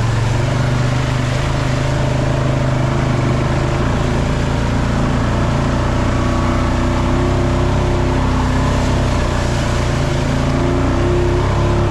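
Off-road vehicle engine running steadily under way while trail riding, with a few small rises and dips in engine speed in the last few seconds.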